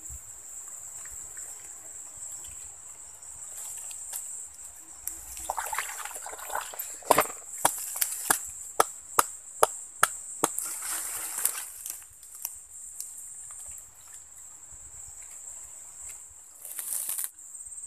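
A steady high-pitched insect chorus. In the middle comes a quick run of about ten sharp clicks, roughly two a second, with rustling around them.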